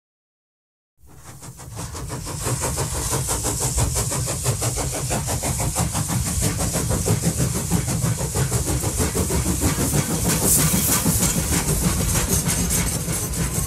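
Train running: a steady low rumble with rapid rhythmic clatter and hiss, fading in after about a second of silence.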